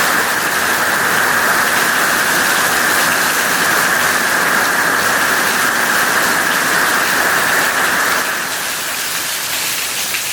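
Heavy hurricane rain pouring down in a steady loud rush as a rain band passes, easing off quickly near the end as the band moves through.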